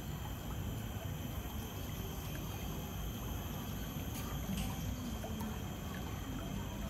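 Water trickling and flowing in a shallow brick-edged garden pool, a steady rush of moving water.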